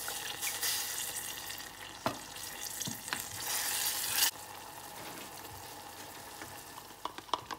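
Turkey pan juices and garlic sizzling in a pan as the sauce is stirred, with a few sharp taps. About three seconds in, a louder hiss rises and then cuts off suddenly after about a second.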